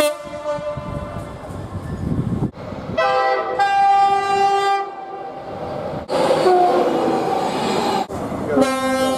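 Train horns from passing trains, cut one after another: a horn blast about three seconds in lasting nearly two seconds, a fainter horn a few seconds later, and another starting near the end, with the rumble of the trains in between.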